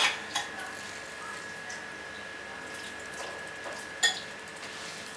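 Steady high-pitched whine from a UDN2916B stepper driver and its bipolar stepper motor while the coils are energised. Sharp clicks come at the start, again just after, and about four seconds in.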